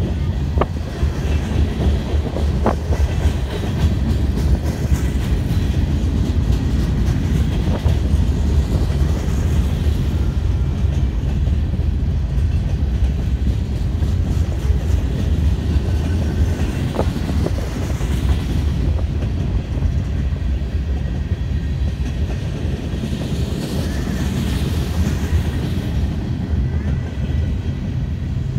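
Freight cars of a long BNSF train rolling past close by: a steady low rumble of steel wheels on rail, with a few faint clicks.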